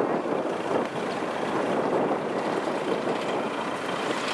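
Kubota DC-70 rice combine harvester running, a steady mechanical din.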